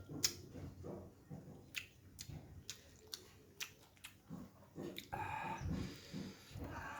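Close-miked eating of a cooked snapper head: wet chewing with sharp smacking clicks every second or so, and a longer noisy stretch about five seconds in.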